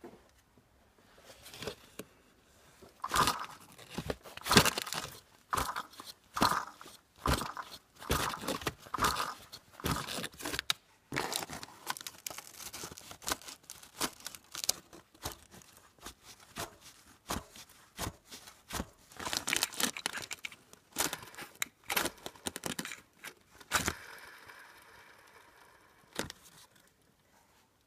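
Worn belt tensioner and idler pulleys on a BMW E46's M54 engine being worked by hand with the engine off. They give irregular rattling, crunching clicks, and briefly a rough spinning whir near the end. The rattle is the sign of worn tensioner pulley bearings.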